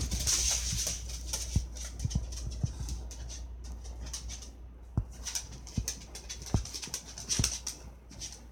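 Small dog's claws clicking and scrabbling on a wooden floor as it nudges a plush cushion along, a scattering of light taps at irregular intervals.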